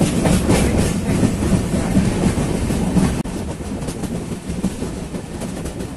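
Passenger train running at speed, heard from an open window or doorway of the coach: a steady rumble of wheels on the rails with irregular clatter. There is a brief break about three seconds in, after which the running noise is a little quieter.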